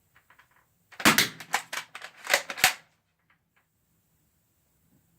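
Nerf blaster being worked and fired: a few faint clicks, then about a second in a quick run of six or seven sharp plastic clacks and pops over under two seconds.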